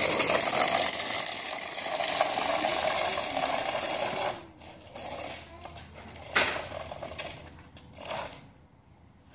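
Tonka toy dump truck rolling across a concrete driveway as it is pushed, a steady noise that fades and stops about four seconds in. Two brief noises follow later.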